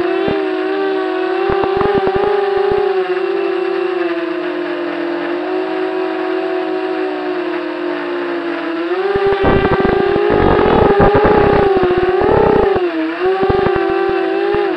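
RC model airplane's motor and propeller running with a steady drone, its pitch sagging and rising a little. Rough bursts of buffeting noise come and go, mostly in the second half.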